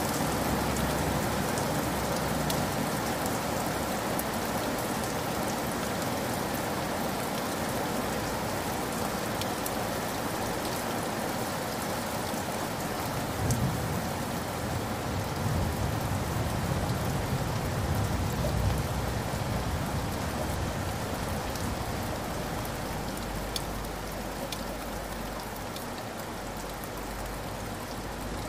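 Heavy rain pouring onto hard wet ground: a steady hiss with close splashing drops. A low rumble swells in about halfway through and fades over several seconds.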